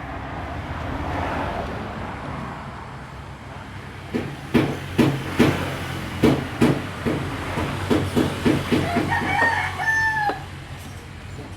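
Nissan YD25DDTi four-cylinder turbo-diesel idling steadily while its cooling system is being bled of air. From about four seconds in, a run of about a dozen sharp knocks comes over the idle, and a rooster crows near the end.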